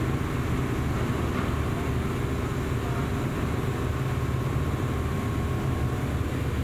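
JR East GV-E400 series diesel-electric train's engine running steadily, the sound even in level and mostly low in pitch.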